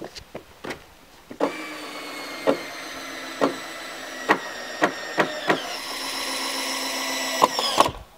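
A small electric power-tool motor starts about a second and a half in, runs steadily with a slight rise in pitch midway, and cuts off just before the end. Sharp knocks of timber sound over it, and there are quicker knocks and taps before it starts.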